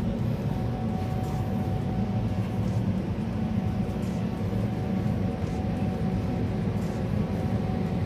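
Steady, loud mechanical drone of a broiler chicken house's ventilation fans, with a thin steady whine over the low hum.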